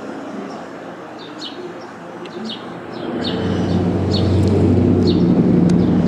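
Small birds chirping in short, high calls repeated every second or so. About halfway through, a loud low rumbling noise comes up and continues underneath them.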